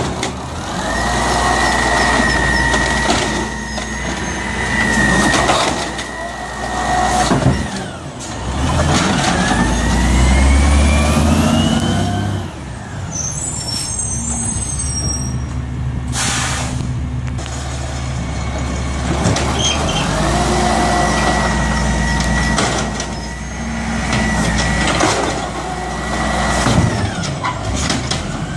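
Automated side-loader garbage truck working carts: a steady high hydraulic whine as the arm lifts and dumps a cart, then the diesel engine rising in pitch as the truck moves off, an air brake hiss about halfway, and the hydraulic whine again near the end at the next cart.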